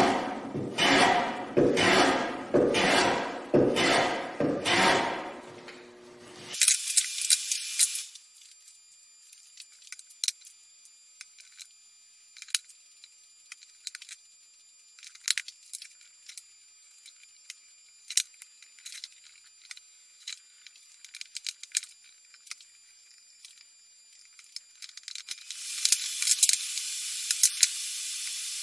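Hand tool strokes along the edge of a softwood board, cutting a chamfer: about seven even strokes, one every second or so, then they stop. After that, faint clicks and taps of wooden parts being handled, with a patch of light rattling near the end.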